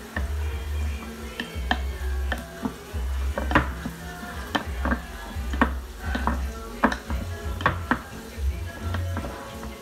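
A spoon stirring diced potatoes and carrots in a glass bowl, knocking against the glass in sharp, irregular clicks several times a second. Background music with a steady bass beat plays underneath.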